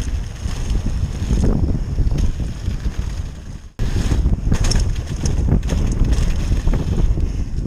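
Wind buffeting an action camera's microphone as a mountain bike rolls fast over a dirt trail, with tyre rumble and knocks and rattles from the bike. The sound fades and cuts out briefly just under four seconds in, then starts again at the same level.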